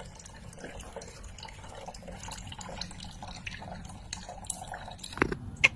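Water trickling and dripping in a pump-driven pet drinking fountain made from a plastic bottle, the stream splashing into its reservoir in many small drops. A brief louder sound comes near the end.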